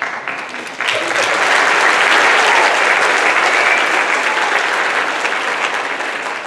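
Audience applauding, the clapping swelling about a second in and beginning to die away near the end.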